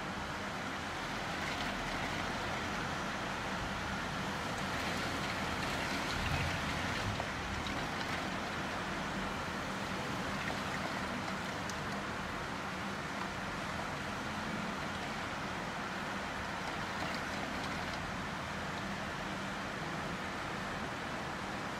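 Heavy wind-driven rain, a steady hiss heard through a closed window, swelling slightly about six seconds in.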